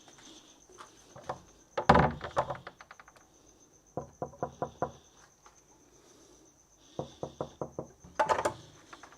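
Knocking on a door to wake sleepers: several rounds of quick raps, the first, about two seconds in, the loudest. A faint steady high whine runs behind.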